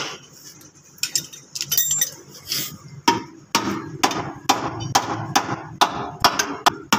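Hand hammer striking the torch-heated steel front chassis rail of a collision-damaged car, a few lighter metal clinks at first, then from about three seconds in a steady run of ringing blows about two a second: the bent rail being beaten straight.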